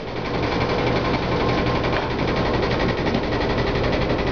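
Washing machine spinning its load fast, a steady rattling vibration over a low hum.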